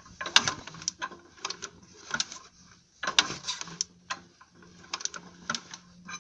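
BMW M50 straight-six engine running with an irregular, sharp knocking, roughly one or two knocks a second, over a faint steady hum. The knock is placed by the owner in the timing chain area.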